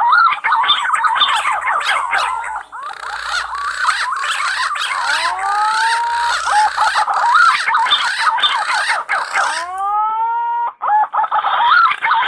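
Wild green pigeons (punai) calling in chorus: many overlapping fluting whistles that slide up and bend back down, one after another. A steady hiss runs beneath them through the middle stretch.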